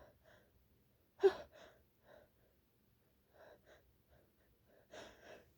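A woman's breathing as a sneeze builds, her nose tickly from what she takes for allergies or a cold: one sharp gasp about a second in, then soft breaths, and quicker catching inhalations near the end, just before the sneeze breaks out.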